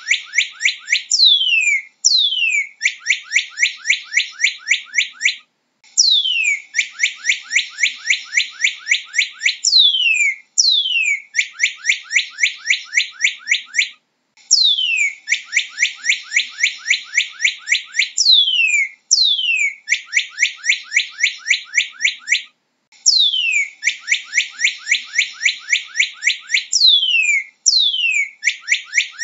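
Northern cardinal singing: phrase after phrase, each opening with one or two long down-slurred whistles and running into a quick series of short down-slurred notes, about five a second, with brief pauses between phrases.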